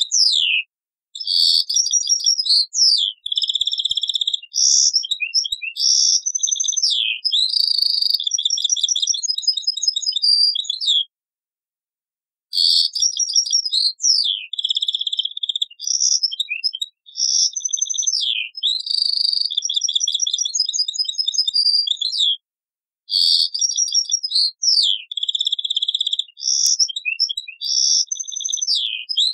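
European goldfinch singing: long runs of fast twittering, with trilled and buzzy notes and quick rising and falling whistles. The song comes in three bouts, broken by short pauses about 11 and 22 seconds in.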